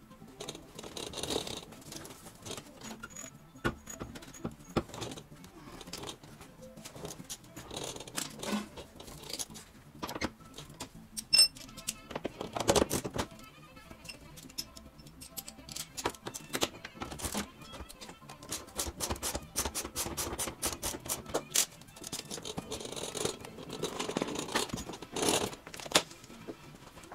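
Irregular clinks, knocks and scrapes of hand tools and metal exhaust hardware as a person works under a raised car to lower the exhaust, with background music.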